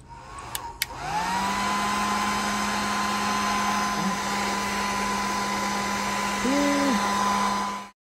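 Electric heat gun switched on with a couple of clicks, its fan whirring up to speed about a second in and then blowing steadily with a low hum and a higher whine, shrinking solder-seal heat-shrink connectors on spliced wires. The sound cuts off suddenly near the end.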